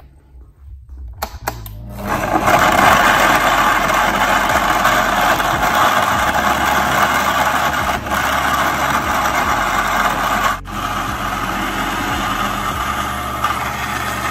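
SilentMixx countertop blender starting up after a few clicks about two seconds in, then running steadily as it churns chunks of raw butternut squash and water into a thick purée. The motor noise dips briefly about ten seconds in.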